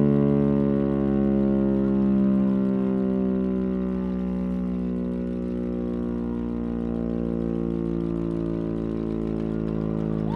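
Chrysler air raid siren winding down, its tone falling slowly in pitch and getting quieter, with the steady hum of its V8 engine running underneath.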